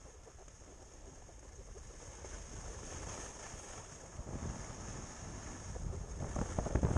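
Wind rushing over the microphone, swelling into heavier buffeting near the end.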